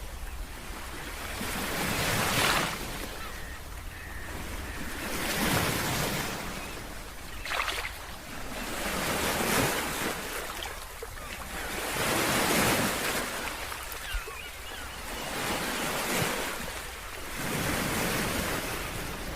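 Sea waves breaking on a beach, the surf swelling and fading about six times, every few seconds, over a steady low wind rumble on the microphone.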